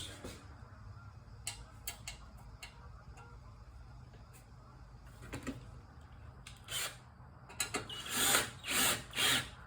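Scattered light clicks of handling, then near the end three short bursts of a power drill driving a substitute screw to hold the dipstick tube on a Briggs & Stratton Quantum engine, its original screw hole stripped.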